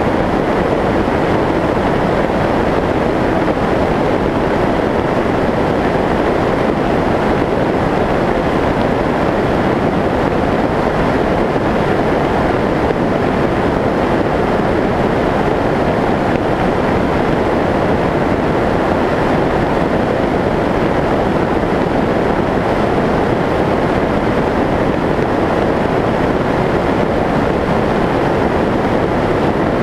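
Steady rush of airflow over the onboard camera of a Skyshadow S800 FPV flying wing in flight, mixed with the drone of its electric pusher motor and propeller. It stays even throughout.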